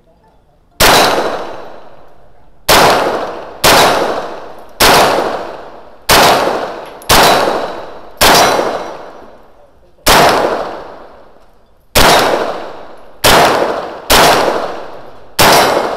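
Twelve single shots from a 9 mm Scorpion, fired at an uneven pace about one to two seconds apart, each followed by a long ringing tail.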